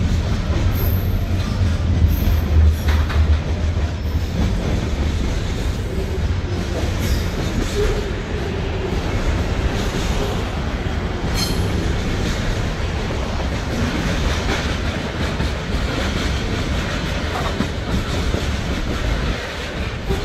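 Container wagons of a freight train rolling past close by: a steady rumble of steel wheels on the rails.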